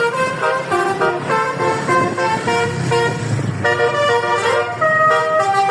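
Multi-tone 'basuri' telolet bus horn playing a tune, its notes changing every fraction of a second.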